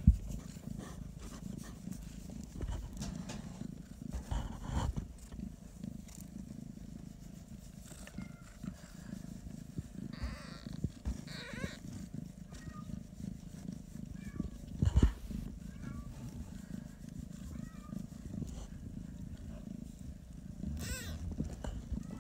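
Bengal cats purring steadily while the kittens nurse, with two short kitten mews about halfway through, faint small squeaks after them, and another brief mew near the end. A single loud bump, from handling, comes about two-thirds of the way in.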